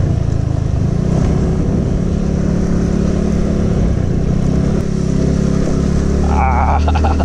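Suzuki Skydrive Sport scooter's single-cylinder four-stroke engine running while riding, a steady engine note that settles and firms up about five seconds in.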